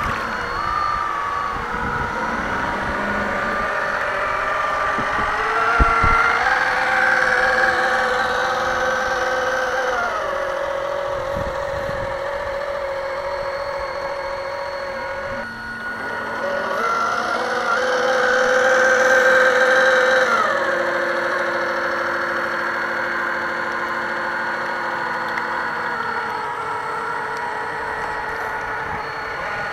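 Radio-controlled model boat's motor running with a whine that glides up and down in pitch several times, holding steady for a few seconds between changes as the throttle is opened and eased. A single knock about six seconds in.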